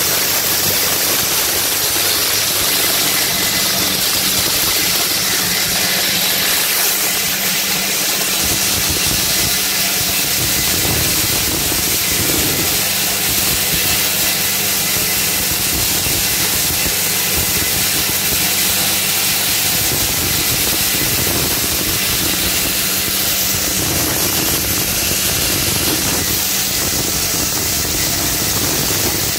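Electric maize crushing machine running steadily while grinding dry maize into chicken feed: a loud, even hiss over a steady low hum.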